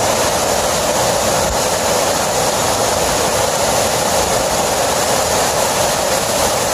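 Waterfall plunging over a cliff onto rock and cascading down a rocky streambed: a loud, steady rush of falling water.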